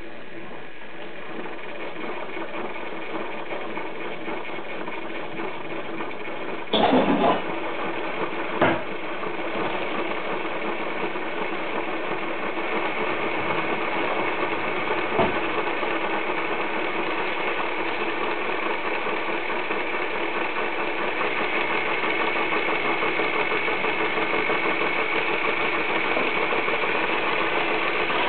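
Märklin 33961 model steam locomotive running on a roller test stand: its motor and gear train whirring with a fast fine rattle as the wheels spin on the rollers, slowly speeding up and getting louder. About seven seconds in there is a short loud burst, and a couple of single clicks follow.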